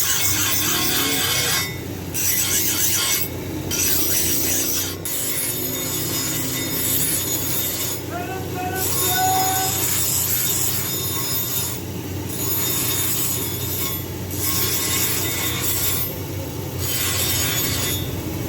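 Abrasive rubbing or grinding on a workpiece, in long passes of a few seconds each with short breaks between them, over a steady low hum.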